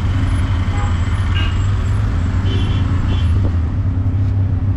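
A tuk-tuk's small engine running with a steady low drone as it rides through city traffic, heard from inside the open-sided cab. A few brief high beeps sound over it.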